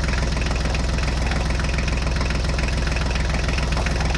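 Truck engine running steadily with a fast, even chug, the engine sound laid over a toy truck being driven.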